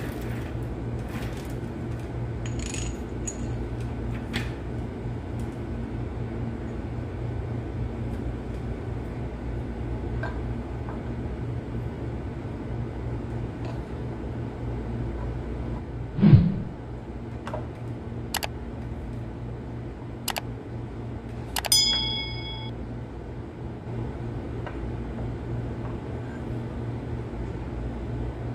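Steel timing gears and the engine's gear housing clicking and clinking as a timing gear is fitted by hand, over a steady low hum. There is a dull knock about sixteen seconds in, and a sharp metal clink that rings on briefly about five seconds later.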